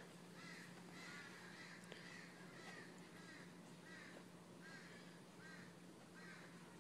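Faint, short animal calls repeated about once a second over a low steady hum.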